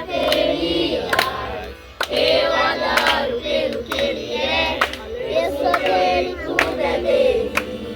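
Group singing of a Portuguese gospel worship song over backing music, with sharp hand claps about once a second.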